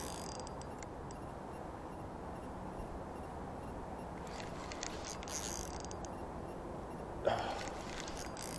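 Fishing reel clicking and ratcheting in short bursts while a hooked salmon is being fought, over a steady background rush. A brief louder sound about seven seconds in.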